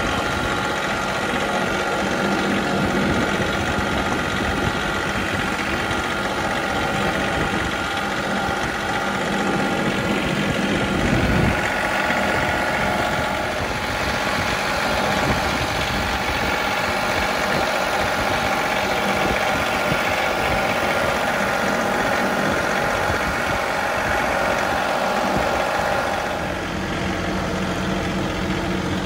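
John Deere 3038E compact tractor's three-cylinder diesel engine running steadily while the tractor drives, heard from the driver's seat. The engine note shifts a little before halfway and the level dips slightly near the end.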